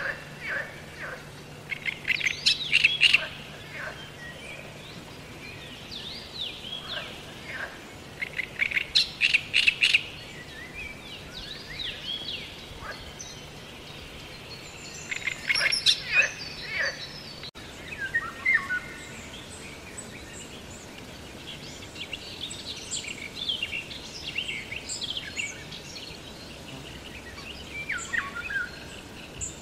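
Wild birds singing and calling: loud bursts of rapid high chirps about two, nine and sixteen seconds in, with softer scattered chirps between and toward the end.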